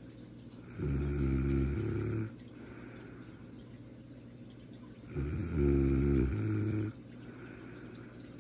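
A person snoring in sleep: two loud, pitched snores about four seconds apart, each lasting about a second and a half, with quieter breathing between.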